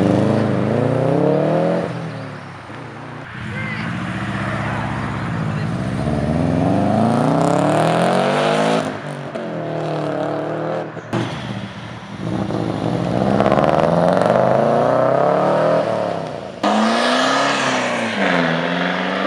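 Modified cars' engines revving and accelerating away one after another. The pitch climbs, drops back at gear changes, and climbs again several times.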